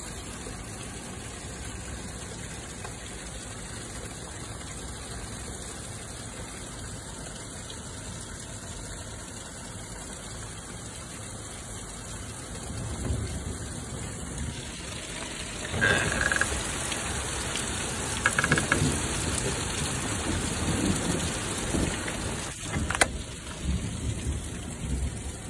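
Heavy rain pouring down steadily, growing louder and more uneven about halfway through. A single sharp click comes near the end.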